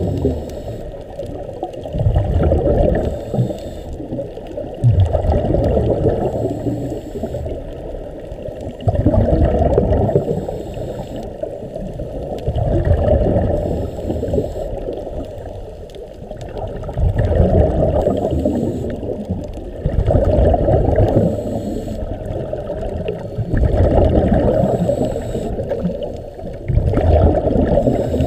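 Scuba divers breathing through their regulators, heard underwater: low bubbling bursts of exhaled air about every three to four seconds, with quieter gaps between breaths.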